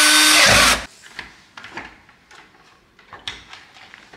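Cordless drill driving a screw into a metal blind bracket, its motor whine rising and then sagging before it stops about a second in. Light scattered clicks and knocks follow as the blind's plastic headrail is handled up into the brackets.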